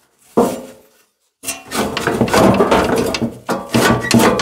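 Rusty steel mini-tractor parts handled on a wooden workbench: one knock, a brief dead gap, then a few seconds of continuous scraping and clunking as metal pieces are shifted against the chassis and the boards.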